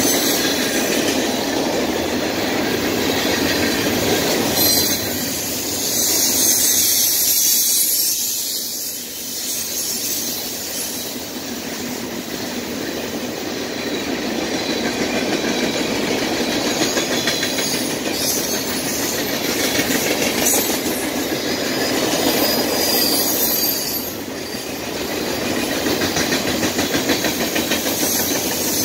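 Freight train cars rolling past on steel rails: a steady rumble and clatter of wheels over the track, swelling and easing a little as the cars go by.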